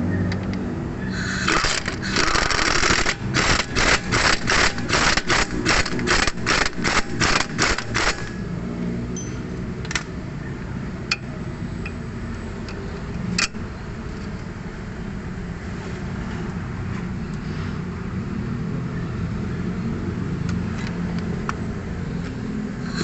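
A wrench working the bolts of a front shock absorber: a short continuous burst, then a quick run of sharp rattling strokes, about three a second, that stops about eight seconds in. A few single metallic clicks follow over steady low background noise.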